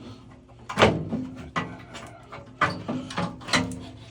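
About half a dozen sharp metal knocks and clanks, some with a brief ring, as the parts of a gas water heater's burner compartment are handled and fitted back together.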